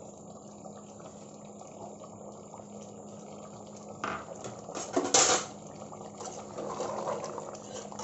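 Thick mutton stew simmering and bubbling in an open pressure cooker. From about four seconds in, a spoon scrapes and stirs through it, with two loud scrapes near four and five seconds, then steady stirring.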